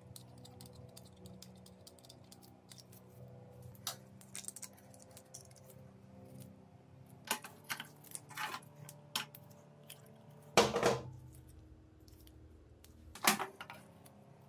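Metal clicks and scrapes as a screwdriver and hands work on a hammer drill's greasy gear housing held in a vise, with two louder metal knocks in the second half.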